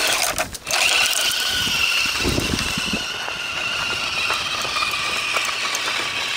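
RC crawler truck driving over gravel, its AXE FOC 550 brushless sensored motor and steel gear driveline giving a steady high whine that starts about a second in. A brief low rumble comes about two seconds in.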